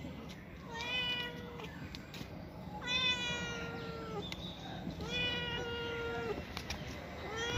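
Domestic cat meowing: three long, drawn-out meows about two seconds apart, each lasting over a second, and a fourth starting at the very end.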